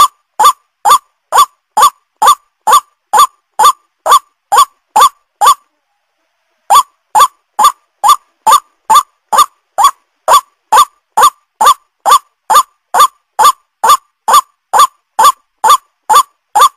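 White-breasted waterhen calling: a long run of short, rising notes repeated about two a second, broken once by a pause of about a second a third of the way in.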